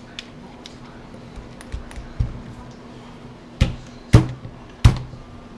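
Several sharp knocks, three loud ones in the second half about half a second apart, over a faint steady hum.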